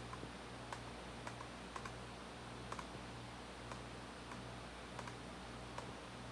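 Faint, scattered clicks from someone working at a laptop, one or two a second, over a steady low hum.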